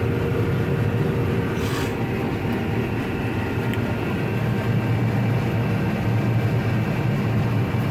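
John Deere 9750 combine running while cutting wheat, heard from inside the cab: a steady low drone of engine and threshing machinery with faint steady tones above it.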